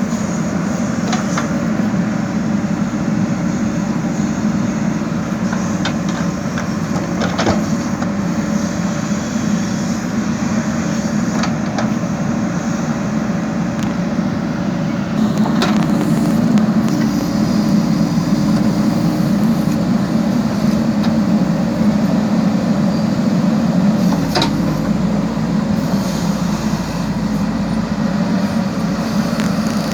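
JCB backhoe loader's diesel engine running steadily while it digs, a little louder from about halfway, with a few sharp knocks scattered through it.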